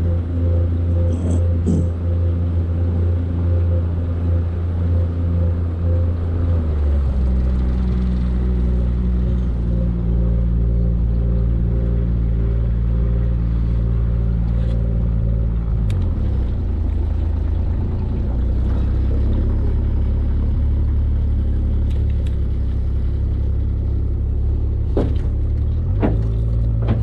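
Boat motor running at low speed. Its pitch drops about a quarter of the way in, dips again past the middle, and rises near the end as the throttle is changed.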